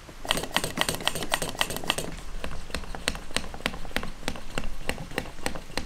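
SeaSucker vacuum-cup mount being pumped by hand, its plunger clicking in a rapid even run of about four to six strokes a second. Each stroke draws more vacuum under the rubber cup to clamp it to the car roof.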